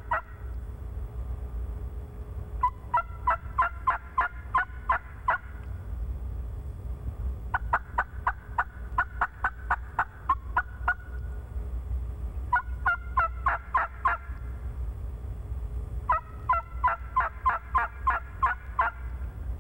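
Hen turkey yelps on a diaphragm mouth call: runs of short, evenly spaced yelps, about four runs with pauses of a second or two between them.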